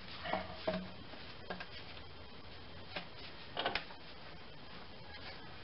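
Light clicks and knocks of a hard plastic air intake assembly being handled and set back in place over the engine. A few scattered taps, with a short cluster of them about three and a half seconds in.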